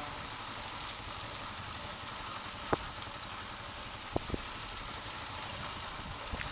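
Motorbike engine running steadily at low speed, with three short sharp knocks around the middle.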